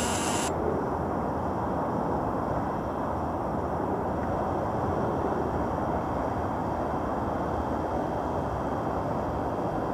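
Steady low rushing noise with no clear tone, even in level throughout.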